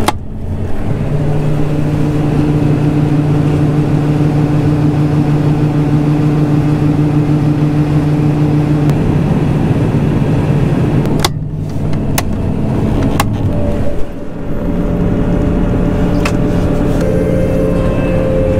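Heavy vehicle engine running while under way, a steady hum whose pitch and character shift abruptly at cuts about 11 and 14 seconds in, with a few sharp clicks.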